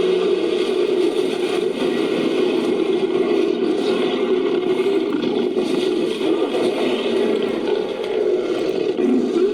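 Made-up monster voice built from layered animal and monster roars: one long, rough, unbroken growl.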